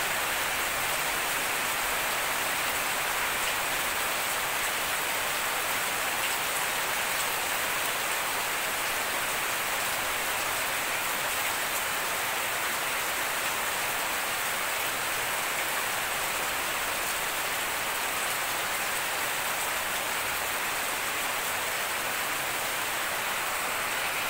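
Steady rain falling on a grassy garden, leaves and puddles: an even, unbroken hiss.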